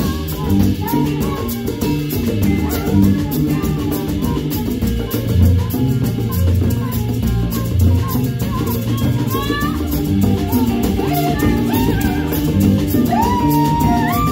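Band music: a drum kit keeping a steady beat under a repeating bass line, with a lead melody that slides between notes.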